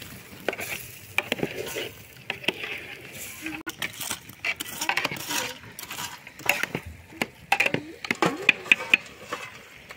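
Scattered clinks and knocks of metal, wood and embers against a black metal pot as the wood fire beneath it is tended. Near the end comes a quick run of sharp clinks as hot coals are piled onto the pot's metal lid.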